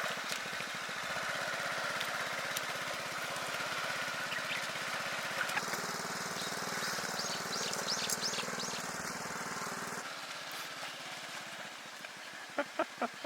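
A small engine running steadily with a fast pulsing beat, dropping in level about ten seconds in. A few short high chirps come through over it around the middle.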